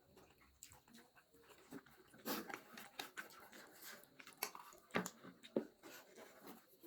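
Close-up eating sounds as people chew chow mein with dried buffalo meat (sukuti): faint chewing and mouth smacks, broken by a few sharp clicks.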